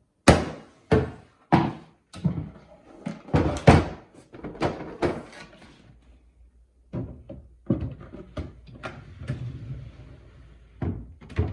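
Series of sharp knocks and thuds on wooden furniture parts, spaced about half a second to a second apart, giving way after about five seconds to lighter tapping and clatter.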